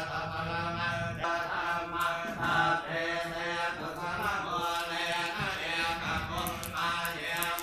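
Buddhist chanting: voices intoning slowly on long held tones, with no pause.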